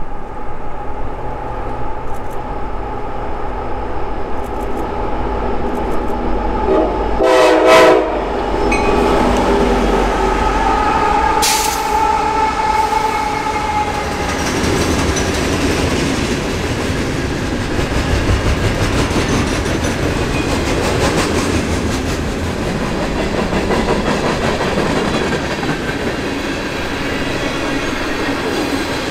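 CSX freight train: the approaching diesel locomotive rumbles low and sounds one short horn blast about seven seconds in. From about halfway on, a string of hopper and tank cars rolls past with a steady rumble and clattering wheels.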